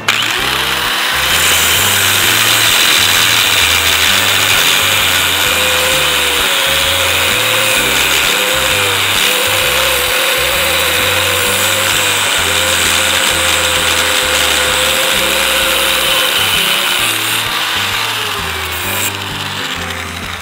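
An old Drill Master 4-1/2" angle grinder with a thin abrasive cutoff disc starts suddenly and cuts through a rusty steel rod. It runs with a loud, steady high-pitched grinding whine whose pitch wavers as the disc bites, then winds down near the end. Background music plays underneath.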